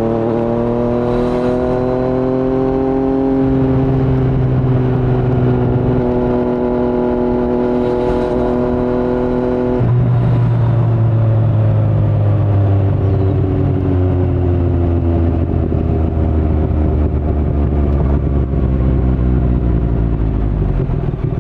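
2019 Yamaha MT-09 three-cylinder engine running through an Akrapovic Racing Line carbon full-system exhaust with no dB killer, heard from the rider's seat. The engine note rises a little and then holds steady. About ten seconds in it changes abruptly and gets a bit louder, then its pitch slowly sinks.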